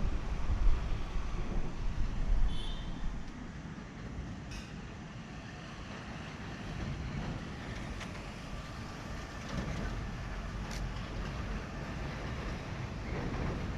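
Thunder rumbling, loud at first and dying away over about three seconds, then a steady low noise of the storm.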